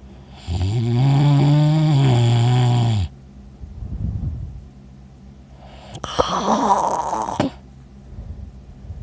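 A man snoring heavily in his sleep: two loud snores, the first a long droning one of about two and a half seconds with a steady pitch, the second rougher and noisier, with softer breathing between them.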